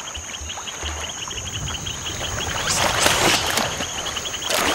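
Water splashing as rhesus macaques swim and tussle in a pool, loudest about three seconds in and again near the end, over a steady rapid chirping of insects.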